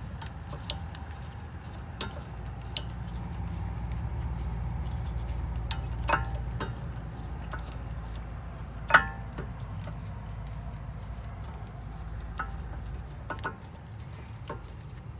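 Scattered small metallic clicks and ticks as a T40 Torx bit is turned clockwise in a 2015 Hyundai Sonata's electric-parking-brake rear caliper, winding the brake piston back in so new pads will fit; the loudest click comes about nine seconds in. A steady low rumble runs underneath.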